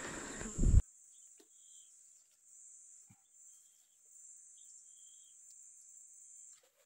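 Steady high-pitched insect chorus from the swamp, with a few short faint chirps over it. It opens with under a second of loud rustling noise that cuts off abruptly.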